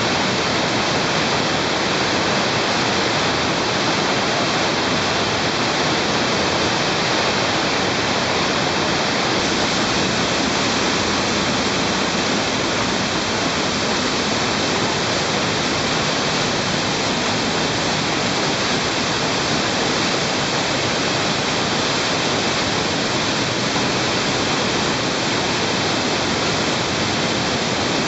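An underground cave stream pouring down a rocky cascade in a swallet passage, a loud steady rush of water with no let-up.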